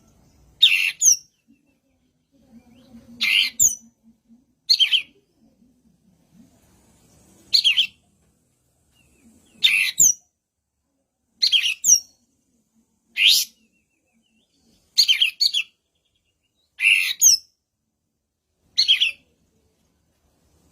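A kapas tembak, a bulbul kept as a songbird, singing short, loud, high phrases with quick upward sweeps, about ten of them, one every second and a half to two seconds. This is the bird in full voice, as used for a lure recording to make other birds sing.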